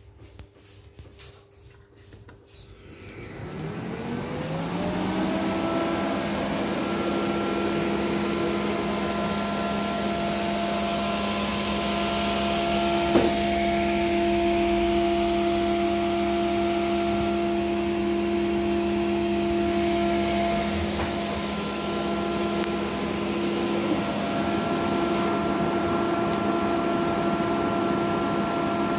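Electric motor run from a Siemens Micromaster 440 variable-frequency drive, spinning up over about three seconds with its whine rising in pitch, then running at steady speed with a steady whine over rushing air: a test run of the repaired drive. A single sharp click a little under halfway through.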